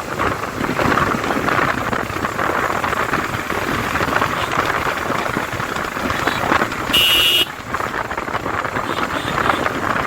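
Steady wind and road noise from a motorcycle ride, rushing over the rider's microphone. A short, high beep cuts in about seven seconds in.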